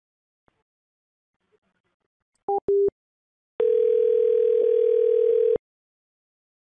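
Telephone call-progress tones on a phone line: two short beeps about two and a half seconds in, then one steady two-second ringing tone as a call rings through to the other end.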